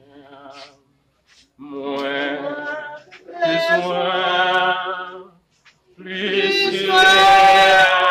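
A single voice singing unaccompanied with a wavering vibrato, in three long phrases with short breaths between them. The last phrase is the loudest.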